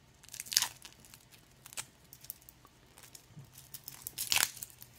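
Protective plastic wrap being picked at and peeled off a watch head, giving small crinkles and light clicks, with two brief louder rustles, one about half a second in and one a little after four seconds.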